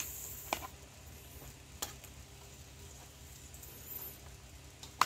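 Leather glove lace being worked through the lacing holes of a baseball glove's web: soft rubbing and scraping, with three short sharp clicks about half a second in, near two seconds and near the end.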